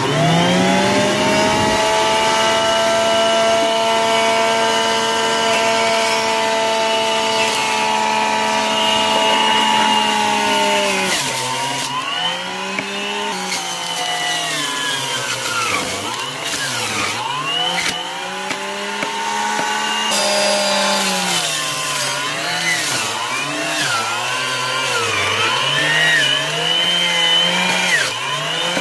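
Electric juicer motor starting and running with a steady whine. About ten seconds in, its pitch starts dipping and wavering again and again, dragged down under load as produce is fed through.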